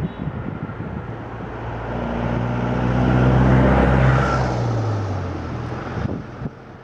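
Road noise and wind from a moving car, with another vehicle's engine hum swelling up, peaking, then dropping a little in pitch and fading away as it passes.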